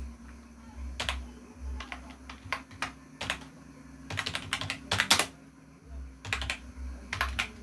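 Computer keyboard being typed on: irregular keystroke clicks, some in quick runs, over a faint steady low hum.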